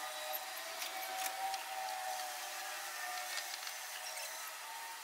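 Light clicks and rubbing of a cable and small fittings being handled and arranged inside a tool cabinet, several taps in the first half, over a faint wavering background tone.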